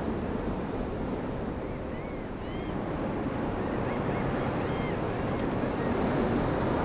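Steady rush of ocean surf and wind, with a few faint, short, high chirps through the middle.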